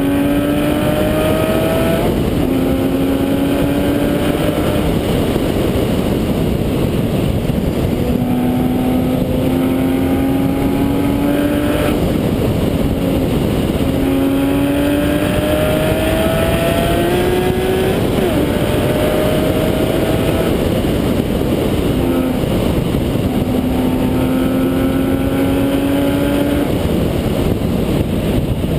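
Porsche 911 GT3 RS's flat-six engine at full throttle on track, its pitch climbing through each gear and dropping sharply at every shift, over a steady rush of wind and tyre noise on the outside-mounted microphone.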